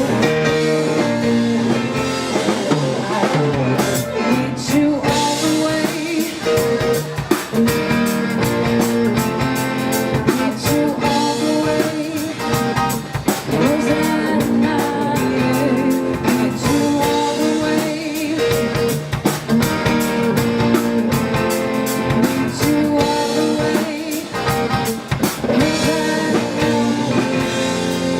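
Live band playing a rock song with electric guitar, drum kit and singing.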